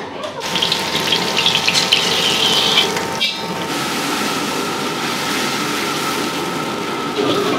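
Water running steadily from a tap, with a brief break about three seconds in.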